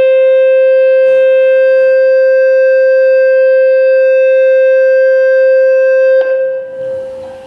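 Public-address microphone feedback: a loud, steady howl held on one pitch, cutting off abruptly about six seconds in.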